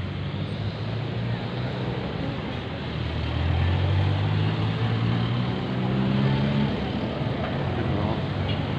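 Street traffic noise with a motor vehicle's engine running close by: a low steady engine hum that grows louder about three seconds in and drops away about two seconds before the end.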